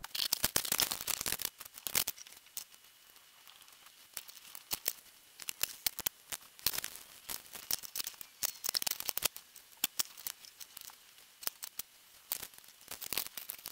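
Scattered small clicks, taps and light rustling of hands handling a model locomotive and its tiny parts while fitting new motor brushes and springs. The clicks come in irregular clusters with short quiet gaps between them.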